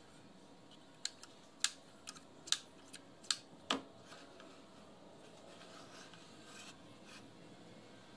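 About eight sharp clicks and taps in quick succession from handling and adjusting the front shoe of an old 600-watt electric hand planer, the last and heaviest with a short ring.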